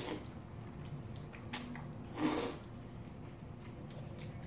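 Slurping and chewing of cold noodles at close range, with a short slurp about two seconds in and a sharp click a little before it.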